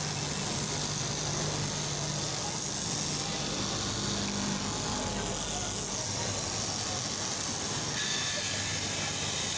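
Electric straight-knife cloth cutting machine running as its vertical reciprocating blade cuts through a stack of fabric plies: a steady buzzing motor hum.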